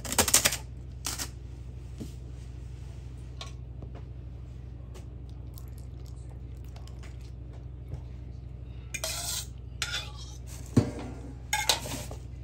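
Kitchen dishes and metal utensils clattering: a sharp clatter right at the start, a smaller clink about a second in, then a run of clinks and knocks near the end, over a steady low hum.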